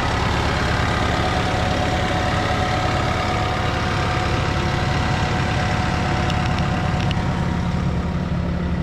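Diesel engine of a Bobcat compact machine (T66 track loader or E42 excavator) running steadily at a constant speed, an even rumble with a faint steady whine over it.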